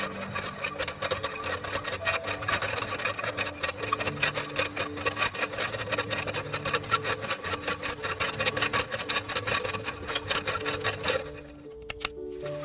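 Fast, repeated rasping scrapes, with background music. The scraping stops for about a second near the end, then starts again.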